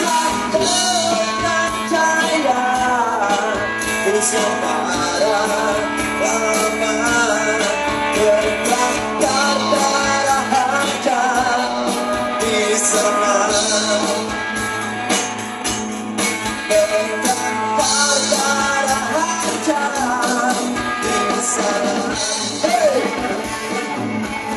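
Rock music with electric guitar and drums, a voice singing or wailing over it.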